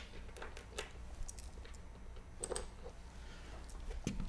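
Faint, scattered small clicks and taps of bolts, nuts and washers being handled and fitted finger tight on a steel screen-printing press base.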